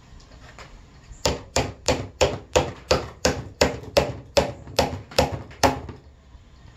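Claw hammer driving a nail into an unfinished pine beehive box: a quick, even run of about fifteen blows, three to four a second, starting about a second in and stopping about a second before the end.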